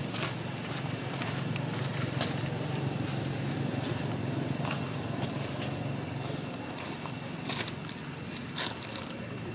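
A steady low engine hum, easing off after about six seconds, with scattered small clicks and crackles over it.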